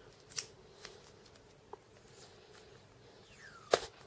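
Hands handling a pen and small fittings: a few soft clicks and rustles, with a sharper snap near the end.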